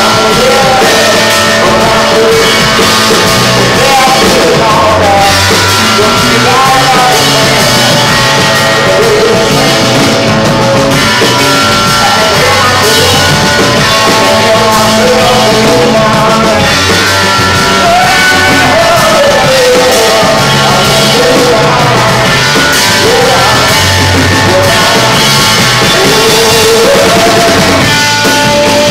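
A rock band playing live: electric guitar and electric bass with a man singing over them.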